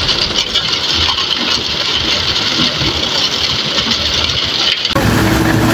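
Concrete mixer truck's engine running while wet concrete slides down its chute. About five seconds in, the sound cuts abruptly to a different steady engine hum.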